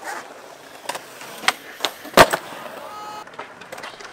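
Skateboard wheels rolling on concrete, broken by several sharp clacks of the board hitting the ground, the loudest about two seconds in.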